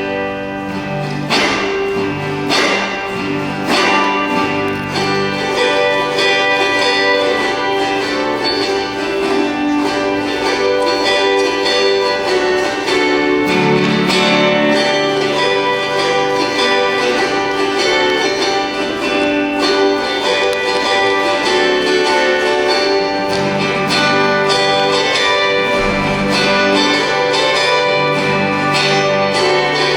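An autoharp ensemble strumming a hymn tune together, the chords ringing on in a large hall.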